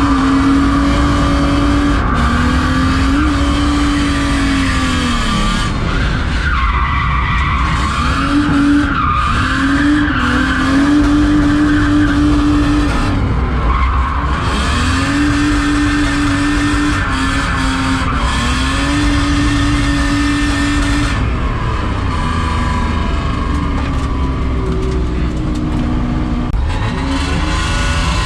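BMW E36 323's straight-six engine held at high revs while drifting, the revs dipping briefly and picking back up several times, with tyres squealing and skidding over it.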